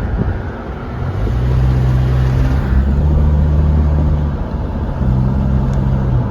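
Vehicle engine running while driving, a steady low engine note over road noise. The note steps up once, fades about four seconds in, and comes back a moment later.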